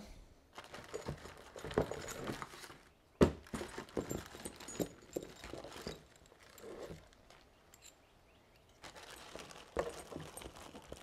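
Hands rummaging in a small plastic hardware bag and on cardboard: crinkly rustling and small scattered clicks and taps of loose metal bolts, the sharpest tap about three seconds in.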